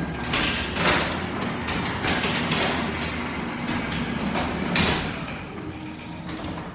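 Overhead sectional garage door rolling up its track, a steady rumble with rattling clunks from the rollers, cutting off near the end.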